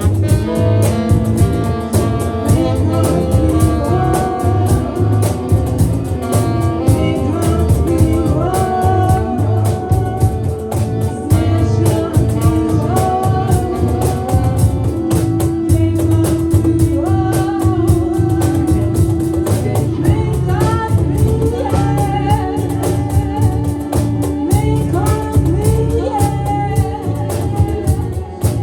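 Psychedelic rock band playing live, with a singer over a steady drum and bass beat, and long held notes a little past the middle.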